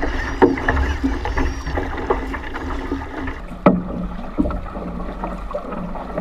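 Outrigger canoe paddles stroking through the water: splashes and knocks at an uneven rhythm over water rushing along the hull, with wind rumbling on the microphone in the first half. The sharpest knock comes a little past halfway.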